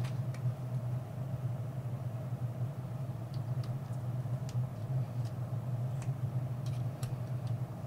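A steady low hum, with faint scattered light clicks of small plastic and metal parts as the top frame of a Samsung Galaxy Note 9 is handled and pried loose.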